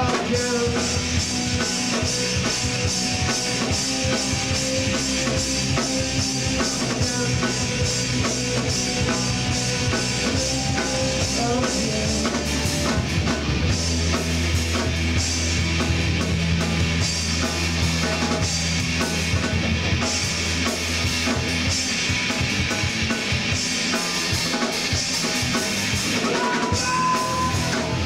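Live rock band playing an instrumental stretch without vocals, drum kit to the fore with bass and electric guitar, loud and steady throughout.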